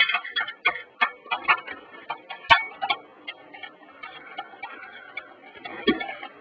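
Screwdriver backing out the mounting screws of a CD/DVD drive in a desktop computer case: a run of irregular sharp metallic clicks, close together for the first few seconds, then sparser.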